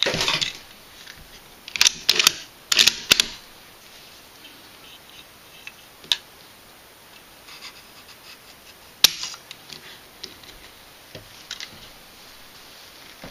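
Metallic clatter and clicks as the Mosin Nagant bolt-action rifle and trigger pull gauge are handled in the first few seconds. About nine seconds in comes one sharp click as the Timney trigger breaks under the gauge, at about 2.25 pounds with no creep, and the firing pin snaps forward.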